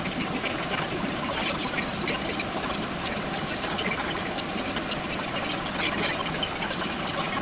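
Food cooking on the stove: a steady sizzle with small crackles and bubbling.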